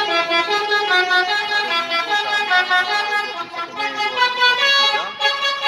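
Bus telolet horn, a multi-tone musical air horn, playing a rapid tune of short notes that step from pitch to pitch, with a couple of brief pitch glides.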